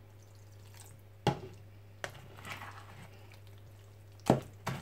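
Fork stirring thick, wet saltfish fritter batter in a plastic bowl: soft squelching, still stiff, with a sharp knock of the fork on the bowl about a second in and two more near the end.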